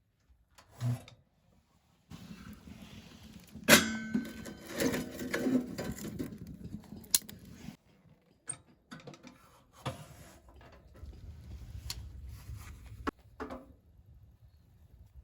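Handling noises: a sharp clank about four seconds in with a brief ringing after it, then scattered clicks and knocks.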